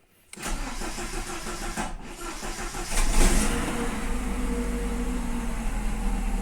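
Old Opel engine cranked over by the starter for about two and a half seconds, catching with a burst about three seconds in and settling into a steady idle. It is a cold start with new rocker arms fitted, and the knock still there is one the owner puts down to the camshaft.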